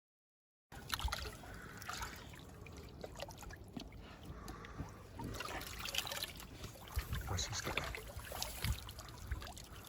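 Water trickling and splashing, with scattered short knocks and rustles of handling.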